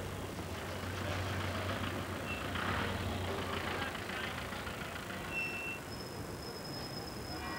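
City street traffic: a van's engine running close by with a steady low hum that fades after about three seconds, over general street noise, with a few short high-pitched tones.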